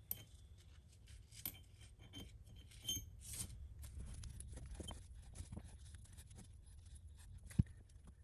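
Faint, scattered small metallic clicks and taps as steel needle bearings are set one at a time into an NP205 transfer case's rear output shaft, with a sharper tick about seven and a half seconds in.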